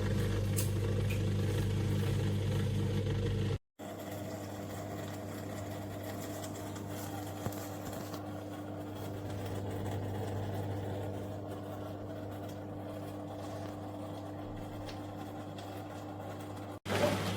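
Mini countertop dishwasher running: a steady motor hum. It cuts out for a moment about four seconds in, then a slightly quieter steady hum carries on.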